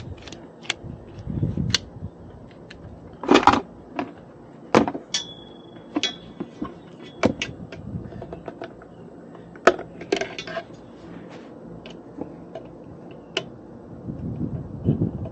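Hand tools and small metal parts being handled: a string of separate clicks, clinks and knocks, with a brief high tone about five seconds in.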